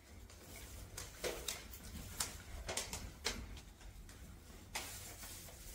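Footsteps and handling noise as a person walks holding the camera: scattered soft knocks and taps at uneven spacing over a low rumble, with one slightly louder knock near the end.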